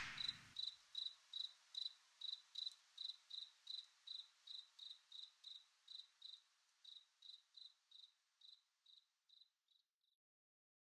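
Cricket chirping in a steady rhythm of about three short, high chirps a second, fading out gradually and stopping shortly before the end.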